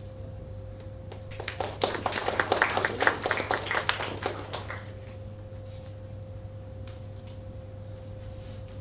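Brief applause, a small audience clapping for about three seconds starting a second and a half in, over a steady low hum.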